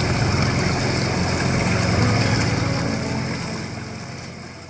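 Boat motor running with water rushing and churning past the hull, steady, then fading away over the last couple of seconds.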